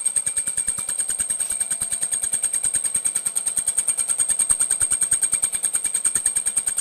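Grizzly G0695 milling machine running, with a steady rapid ticking at about ten beats a second over a constant high whine.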